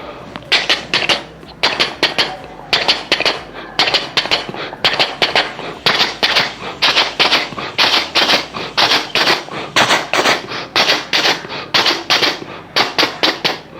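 Vocal mimicry of a Mumbai local train running: a rhythm of short, sharp clacks, a few each second, imitating the wheels going over the rail joints.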